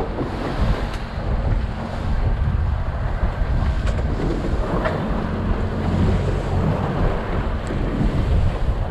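Wind buffeting the microphone on an open fishing boat at sea, with waves and the steady low hum of the boat's engine underneath.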